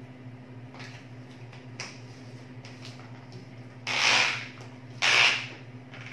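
Plastic bottle of vitamin C tablets shaken twice, the tablets rattling inside, a little under four seconds in and again about a second later, after a few light handling clicks.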